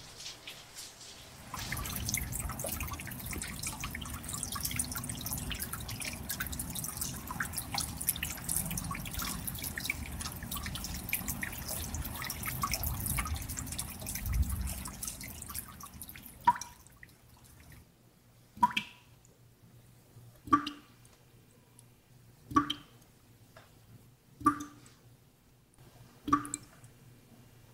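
Water pattering steadily like rain for about fifteen seconds, then dying away into single water drops plopping about every two seconds, each a sharp plip with a short ringing pitch.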